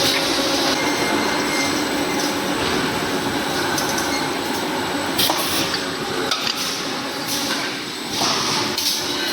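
Razor wire mesh welding machine running: a steady mechanical clatter with a couple of sharp clanks in the middle and a short burst of hiss near the end.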